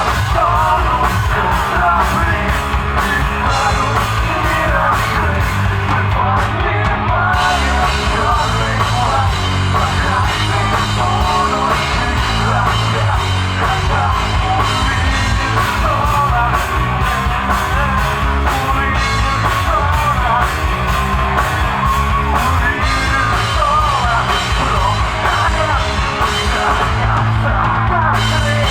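Live rock band playing loud, steady punk-rock with a driving drum kit beat, distorted guitars and a shouted lead vocal.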